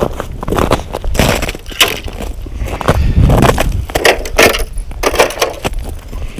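Boots crunching through snow and crusted ice in a run of uneven steps, then the plastic tip-up being handled as it is lifted off the ice hole.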